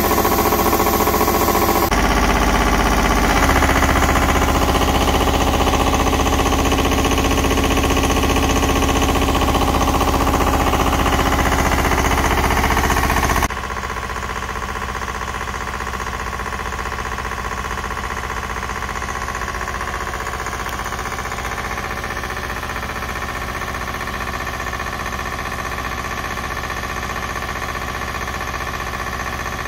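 Two-cylinder Lombardini diesel engine of a Sahlins 3300 hydraulic cable winch trailer running steadily while it drives the winch. Its note deepens about two seconds in, and the sound becomes quieter and more distant about halfway through.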